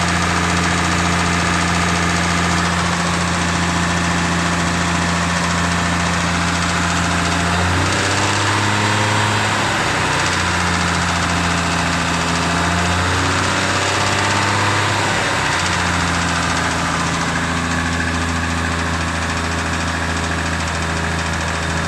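Lexus IS300's turbocharged 2JZ-GE straight-six running at idle, its revs rising and falling a couple of times around the middle before settling back to idle. The engine has a rattle that the owner wonders may be rod knock.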